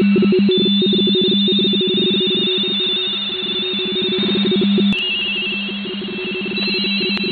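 Several amateur-radio RTTY (radioteletype) signals in a shortwave receiver's audio, 45.45 baud. The loudest is a two-tone warble that flips rapidly between its low mark and space tones, with fainter RTTY signals warbling higher up.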